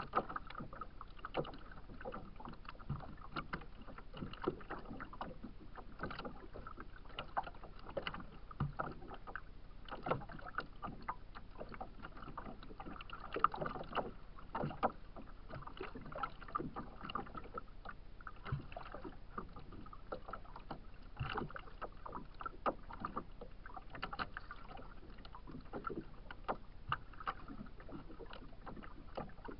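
Small waves lapping and slapping against a kayak's hull: a steady watery wash with frequent irregular little splashes and knocks.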